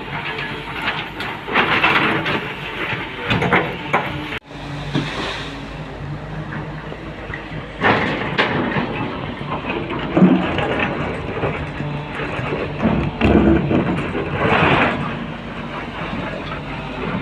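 Excavator's diesel engine running steadily under load, with repeated louder bursts of scraping and clanking noise from the working machine; the sound briefly cuts out about four seconds in.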